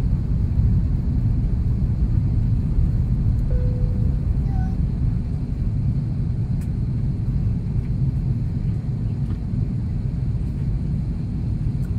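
Steady low rumble of engine and airflow noise heard inside the cabin of an Airbus A330-300 airliner descending on approach to land.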